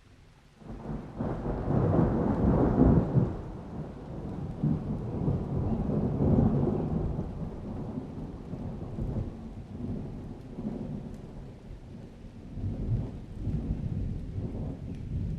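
Thunder rumbling: a deep roll breaks in about a second in, is loudest over the next couple of seconds, then keeps rolling more quietly with swells.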